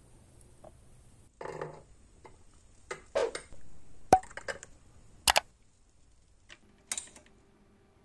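Small metal parts and a glass jar being handled while an electrolysis bath is set up: scattered clicks, knocks and clinks. The sharpest is a click with a brief ring a little after four seconds in, followed by another sharp click about a second later.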